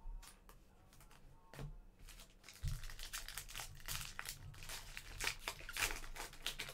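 Trading-card pack wrapper crinkling and tearing as it is handled and ripped open. A few scattered crackles come first, then dense crinkling from about two and a half seconds in.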